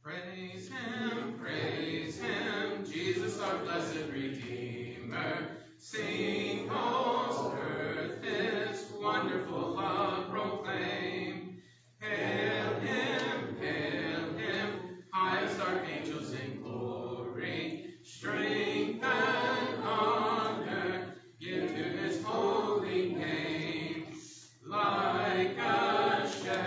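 Congregation singing a hymn a cappella, unaccompanied voices in phrases of a few seconds each, broken by short pauses for breath.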